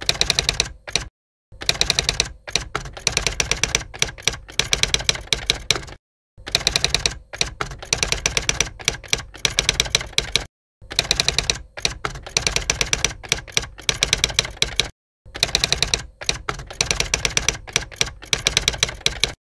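Fast, uneven clicking in runs of about four seconds, each run broken off by a brief total silence.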